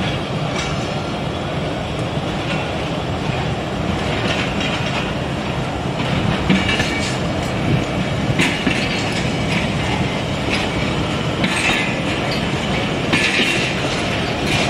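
Passenger train coaches rolling past close by: a steady rumble and clatter of wheels on the rails. Short higher-pitched screeches come every couple of seconds.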